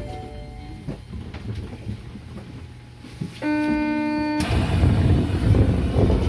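Osaka Metro New Tram car at a station stop: a low running rumble, then a steady electronic tone of about one second some three and a half seconds in, followed by a loud rush of noise as the doors slide open.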